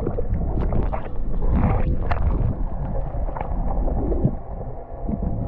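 Muffled underwater sound of lake water moving against a submerged GoPro: a steady low rumble with sloshing and gurgling.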